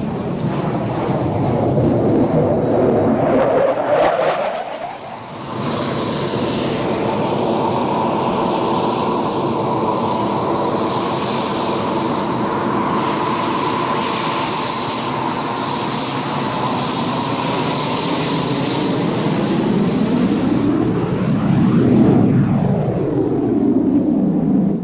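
Dassault Mirage 2000 jet engine, first loud on the runway with the jet nose-high. After a break about five seconds in, it runs steadily with a high turbine whine as the jet taxis. The sound sweeps and swells near the end as the jet passes close.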